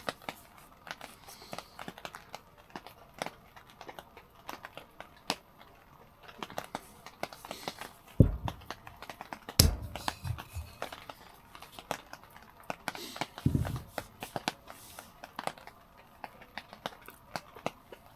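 Wood campfire crackling, with irregular sharp pops and snaps. A few dull low thumps come about halfway through.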